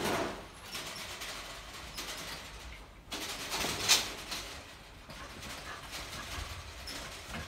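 Rottweiler shifting about inside a stainless-steel cage, rattling and clattering the metal bars and slatted floor grate, with a sharper clack about four seconds in.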